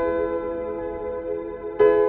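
Ambient meditation music of sustained, ringing layered tones, which the uploader says is built around Neptune's 211.44 Hz frequency. A new note is struck near the end.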